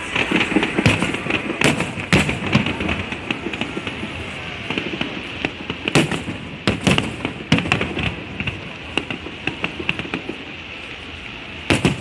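Aerial fireworks display going off: an irregular run of sharp bangs and crackles, some in quick clusters, over a steady murmur of crowd voices.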